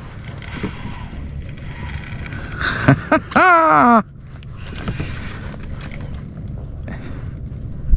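Steady low rumble of wind and water around a fishing kayak, with a few faint clicks of tackle. A man's short, drawn-out exclamation stands out about three seconds in.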